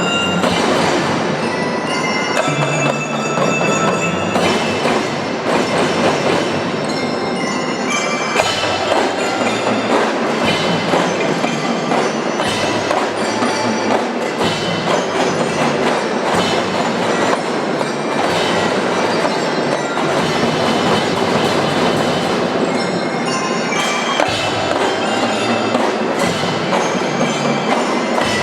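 Marching band playing: drums beat a steady rhythm under ringing mallet percussion such as bell-lyra or glockenspiel.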